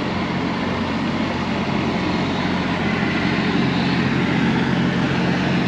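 Steady low mechanical hum of a large parked truck running, its pitch and level unchanging, over a wash of street noise.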